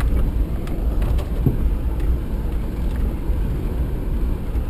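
Steady low rumble of a Suzuki Vitara's engine and tyres heard from inside the cabin while driving along a dirt trail, with a few faint clicks.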